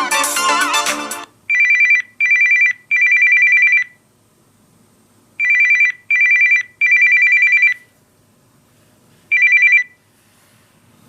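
Samsung Galaxy S20 ringtones: a musical ringtone ends about a second in, then a ringtone in the style of an old telephone bell plays, a fast warbling two-tone electronic trill in a short-short-long group, repeated once, followed by a single short trill near the end.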